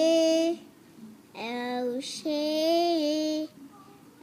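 A young girl singing a short sing-song phrase in a high voice, twice, each time ending on a long held note.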